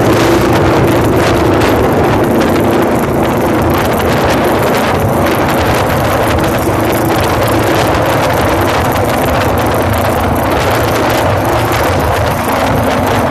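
Wind noise on the microphone of a moving motorcycle, over the engine's steady running note.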